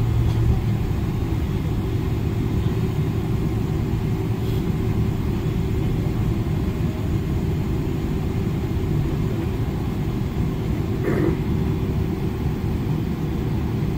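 Inside the cabin of a Boeing 777 taxiing: steady low rumble of the jet engines at taxi power, with a steady hum.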